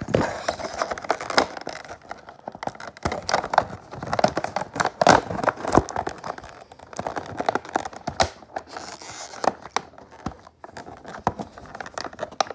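Toy packaging being torn and crinkled by hand: irregular tearing, crackling and rustling as the box is worked open.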